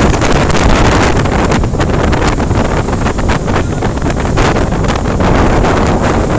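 Strong wind buffeting the microphone on a boat crossing rough sea, with a steady low roar of engine and water underneath and many short crackles through it.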